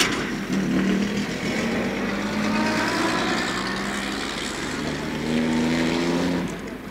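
A motor vehicle's engine running close by on a city street, with a steady low note and a faint rising whine above it. The sound swells once more and then drops away near the end. A sharp click comes at the very start.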